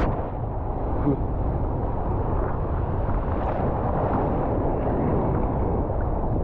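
Ocean surf washing around a camera held at the water's surface: a steady, muffled rush of water with wind on the microphone.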